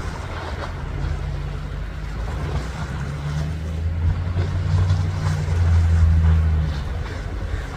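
Low steady drone of a boat's engine out on the water, building to its loudest about six seconds in and dropping away near the end, over wind and water noise.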